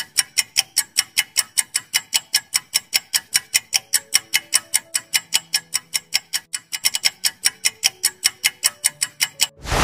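Countdown timer sound effect: fast, even clock ticking, about five ticks a second, over faint background music. A sudden loud rushing sound effect breaks in just before the end.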